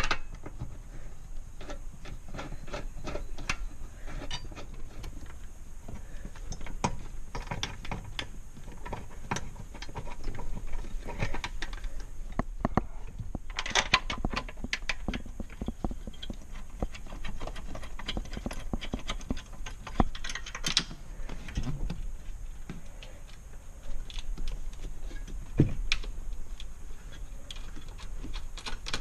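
Irregular clicks and light metallic knocks from hand tools and parts being handled while bolts go into a car's dashboard support structure, with a few louder knocks.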